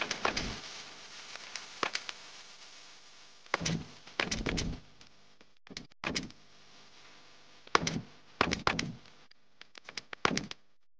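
Black plastic garden border fence panels clicking and knocking against each other and the table as they are handled and fitted together. The sound comes in short clusters of clatter with quiet gaps between them.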